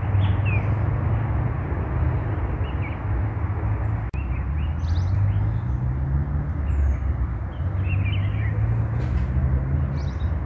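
Scattered short bird chirps over a steady low rumble and hiss, the rumble being the loudest sound.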